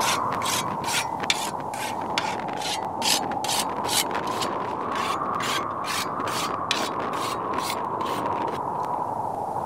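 A sickle blade worked with quick, even rasping strokes, about three a second. A steady hiss runs underneath.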